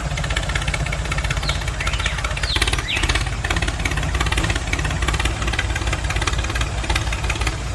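Tractor engine running at a steady, rhythmic chug, with a few brief high chirps about two and a half to three seconds in.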